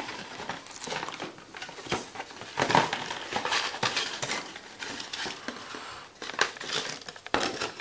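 A cardboard gift box being opened by hand: the end flap pulled open and the cardboard insert slid out, with irregular rustling, scraping and crinkling of card.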